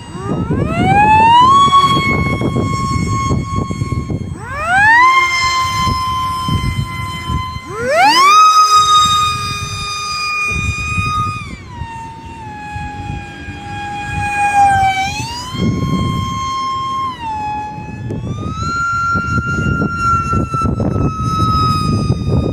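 Small electric RC plane's 2900kv brushless motor spinning a 5x4 propeller, a high whine that climbs steeply in pitch, holds, then drops, about five times as the throttle is opened and eased back. A rough low noise runs underneath.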